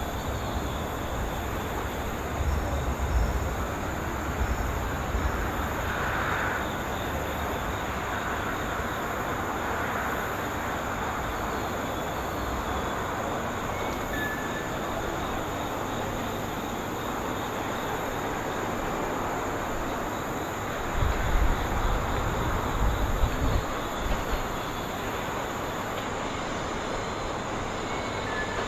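Passenger train running through the station, giving a steady rolling rumble. Heavier low rumbling comes a few seconds in and again about three quarters of the way through.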